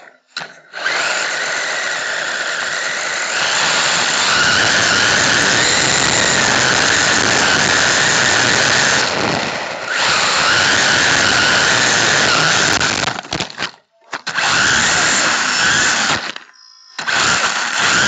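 WLToys 124007 RC truck's brushless electric motor and geartrain whining at speed, heard from onboard, with its tyres hissing over artificial turf. The whine is steady and high-pitched, and cuts out twice in the second half before picking up again.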